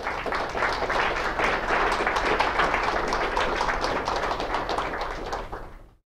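Audience applauding, a dense patter of many hands clapping that comes in at once, holds, and fades away near the end.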